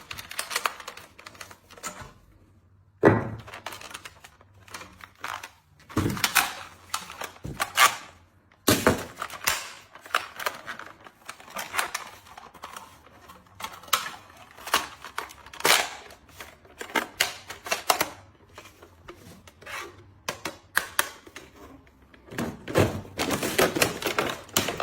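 Hard plastic clicks and clacks of a toy pistol being handled, in irregular bursts with a few sharper knocks and a quick run of clicks near the end.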